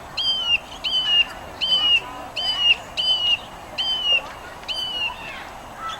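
A bird calling a series of seven clear whistled notes, evenly spaced about three-quarters of a second apart, each holding its pitch and then dropping at the end.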